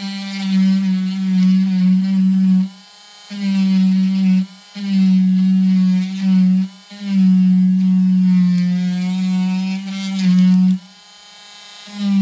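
Small handheld rotary tool running with a steady electric hum, its bit grinding the bark off a juniper trunk to carve a shari; the pitch wavers slightly as the bit works the wood. It stops and starts again four times: once about three seconds in, twice briefly, and for about a second near the end.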